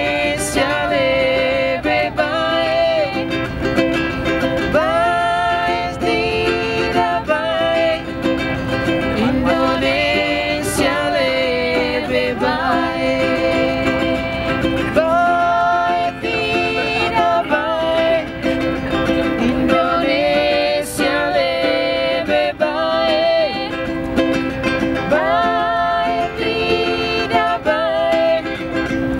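A man and a woman singing an East Nusa Tenggara folk song together, accompanied by a strummed ukulele.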